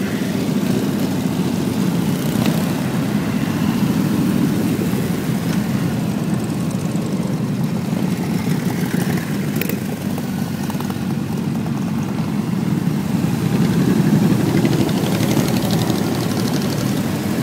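Steady low rumble of wind buffeting the microphone during a bike ride, with no clear engine tone.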